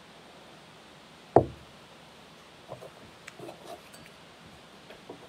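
A metal chalice set down on a table with a single heavy knock about a second and a half in, followed by a few faint clinks and rustles.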